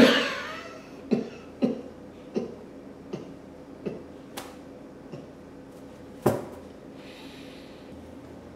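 A man's exaggerated crying: a loud wail at the start, then a string of short, broken sobs, about eight over six seconds.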